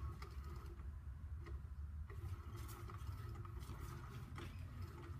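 A small motor whirring steadily, with scattered light ticks and taps.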